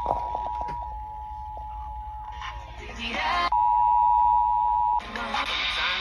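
Emergency Alert System attention signal, the steady two-tone alert, playing from an Eton Elite Traveler portable radio. It fades over the first seconds, and after a moment of other broadcast audio it comes back loud about three and a half seconds in, then cuts off suddenly about five seconds in, with a second of broadcast audio after it.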